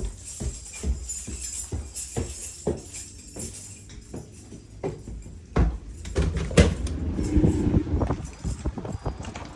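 Background music with a steady, tambourine-like beat. About halfway in, louder and busier sound joins the music.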